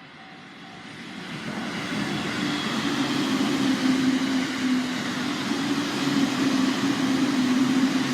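A train passing close by at a level crossing: its noise builds from about a second in and stays loud, with a low hum running under it. The crossing's warning bell rings in a repeating pattern at the start before the train drowns it out.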